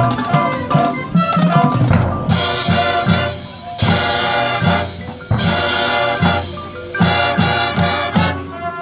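High school marching band playing: brass and percussion together, with loud full-band brass chords coming in several times over a steady drum beat.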